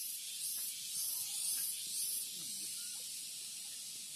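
Insects singing in a high, hissing drone that pulses about twice a second, then settles into a steady hiss a little past halfway.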